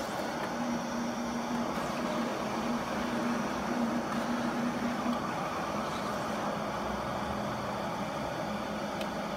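Roland GR-420 cutting plotter running, its motors driving the blade carriage and feed rollers as the blade cuts plastic sheet at 600 g blade pressure. A steady mechanical hum whose low tone drops slightly about five seconds in.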